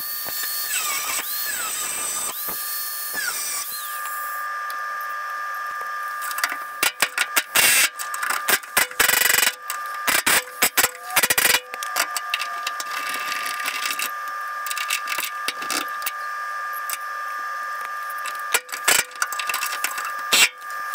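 Shop tools cutting out spot welds in truck-bed sheet metal. First comes a tool's whine that sags in pitch under load and recovers, twice. Then come runs of sharp metal clattering and knocking on and off, over a steady hum.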